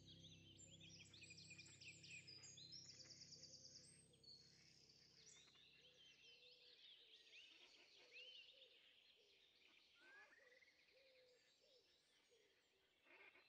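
Faint birdsong: many quick high chirps and short rising whistles, busiest in the first half, over a soft held musical drone that fades out about halfway through.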